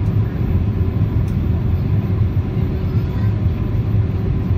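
Steady low rumble of an Airbus A340's engines and rushing air, heard inside the passenger cabin on the approach to land.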